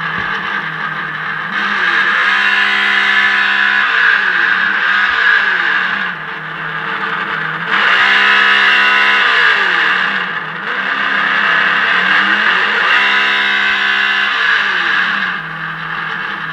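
Simulated engine sound from an RC onboard audio module playing through small speakers in a Traxxas UDR, idling and then revving up and back down three times.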